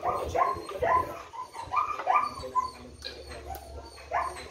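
A dog barking repeatedly in short, quick barks, about two or three a second, with a pause of about a second before they start again near the end.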